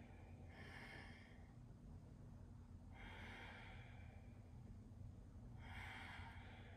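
A person's faint, slow breathing: three long breaths a little over two seconds apart, taken while holding a yoga pose.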